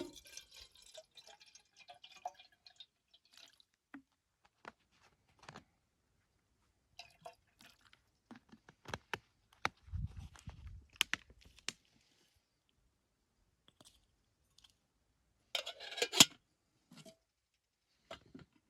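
Camp cooking gear being handled: scattered light clicks and taps, a low thud about ten seconds in, and a louder burst of clatter around sixteen seconds, as the kettle and food are got ready.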